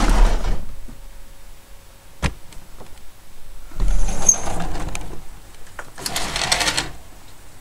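Handling noise on the camera microphone: bursts of rustling and scraping as hair and clothing rub against it, one about four seconds in with a deep rumble under it and another near six seconds, with a sharp click about two seconds in.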